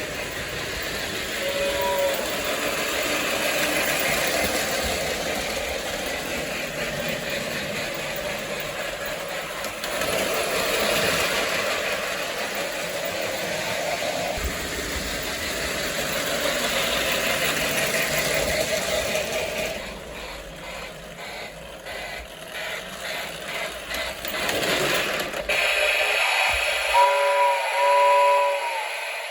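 Lionel MPC-era Union Pacific 8002 toy steam locomotive running on three-rail track, its Sound of Steam unit chuffing along with the motor and wheels. Its electronic horn gives a short two-tone blast about two seconds in and two more near the end.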